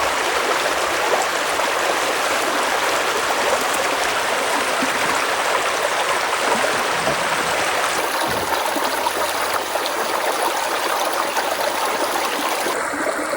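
Creek water flowing with a steady rush.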